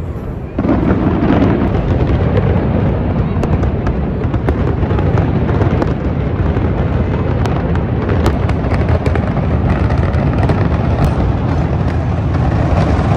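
Fireworks display going off, a dense continuous run of bangs and crackles over a heavy low rumble, rising sharply about half a second in.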